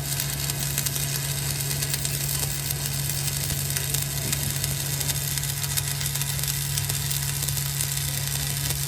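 Electric arc welding on a truck rim: a steady crackling sizzle with a low hum underneath.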